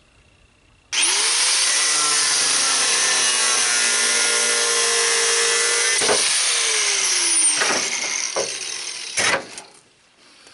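Handheld angle grinder cutting through steel rebar: it starts abruptly about a second in and runs for about six seconds with a steady whine. It is then switched off and winds down, and a few sharp metallic clanks follow.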